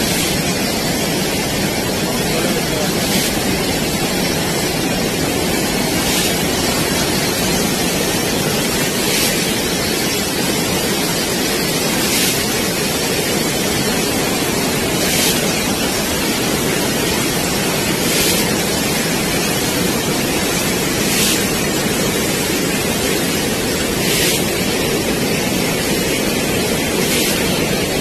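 Flash-flood torrent of muddy river water rushing, a loud, steady noise of water with no let-up.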